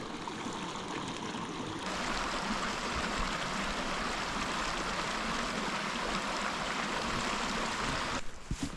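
Small mountain creek running over rocks, a steady rush of water that grows louder about two seconds in and cuts off abruptly near the end.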